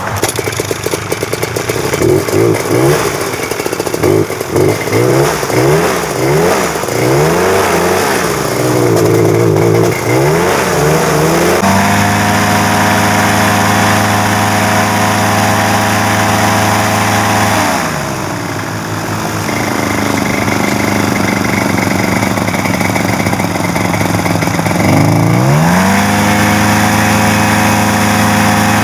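Paramotor engine and propeller running. It is blipped up and down repeatedly at first, then held at a steady higher speed for about six seconds, drops back to a lower speed, and is run up again near the end.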